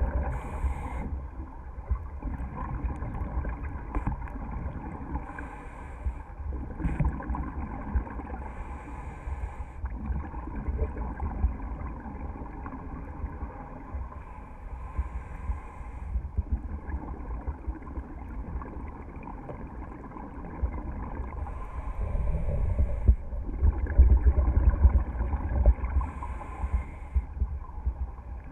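Scuba breathing heard underwater: a short regulator hiss on each inhale and a bubbling rumble of exhaled air, repeating every several seconds over a steady muffled low rumble.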